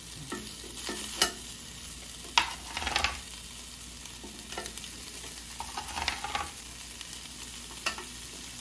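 Bacon-wrapped asparagus sizzling on the hot grill grate of a Ninja Foodi Grill as more bundles are laid down with tongs: a steady sizzle that swells louder twice. Sharp clicks of the tongs on the grate several times.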